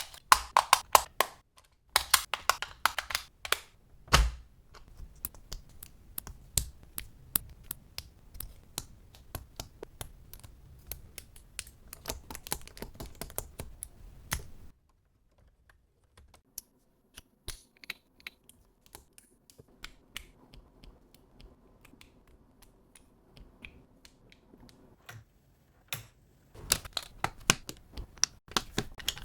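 Plastic Mould King building-brick parts clicking and snapping as they are handled and pressed together: rapid runs of small clicks, sparser through the middle stretch, then dense again near the end.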